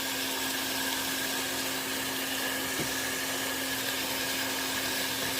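Steady whirring of a motor-driven fan with a constant low hum, even throughout.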